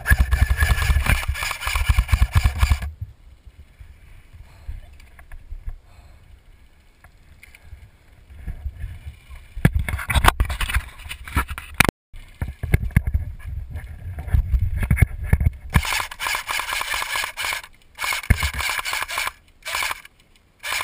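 Cyma AK-47 airsoft electric gun firing on full auto in several bursts: a long one of about three seconds at the start, then shorter bursts partway through and near the end, each a fast rattle of gearbox cycling and BB shots.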